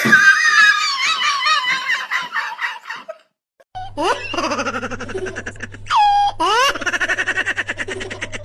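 Two laugh clips one after the other: a high-pitched giggling laugh in quick pulses, a brief gap about three seconds in, then another high-pitched laugh with a couple of squeals, with a steady low hum under the second one.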